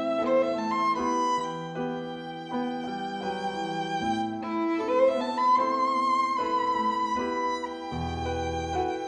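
Violin and grand piano playing a spiritual together: the violin carries a held melody with vibrato over piano chords and bass notes.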